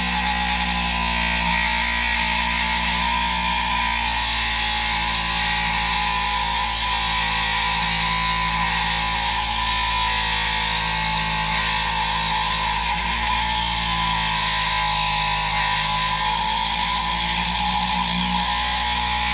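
Dremel rotary tool with a thin diamond cutting disc, running steadily at slow speed as it cuts through the metal of a model excavator cab.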